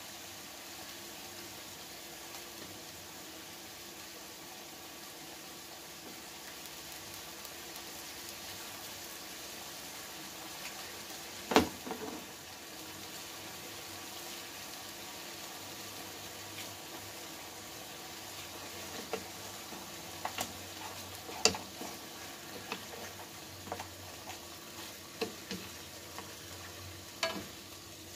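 Marinated pork chops frying in a dry nonstick pan with no oil: a steady, quiet sizzle of the soy and oyster sauce marinade, with scattered sharp clicks and pops. The two loudest pops come about a third of the way in and again about three quarters through, and they grow more frequent in the second half.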